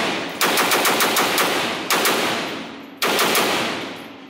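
Rapid gunfire from an AK-pattern rifle in an indoor range. A fast string of shots comes about five a second from about half a second in, then one more near two seconds and a final shot about three seconds in, each ringing off into a long echo.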